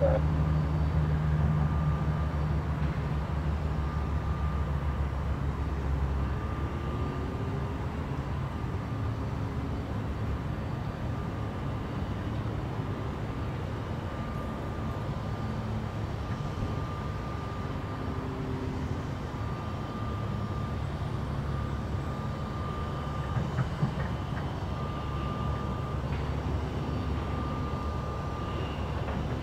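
Jet airliner's engines rumbling as it climbs away into low cloud. The sound fades over the first several seconds, then stays at a steady, distant level.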